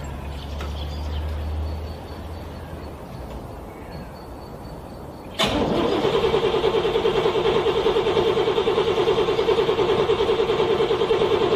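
Cold car engine being cranked by its starter, struggling to start in freezing weather. After a quieter stretch with a low rumble, the cranking cuts in abruptly about five seconds in and turns the engine over in a fast, even, pulsing rhythm that keeps going steadily.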